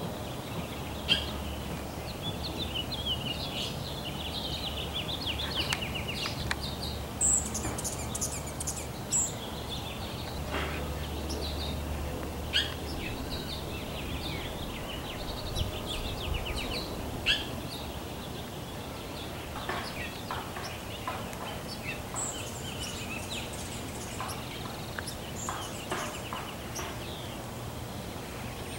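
Songbirds chirping and warbling in quick short phrases, with a hummingbird's very high squeaky notes about seven seconds in. A few sharp knocks are scattered through, over a low steady hum.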